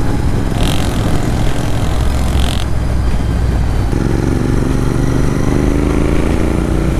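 Motorcycle engine running under the rider at road speed, with heavy wind noise on the microphone. About four seconds in, the engine note rises steadily as the bike accelerates.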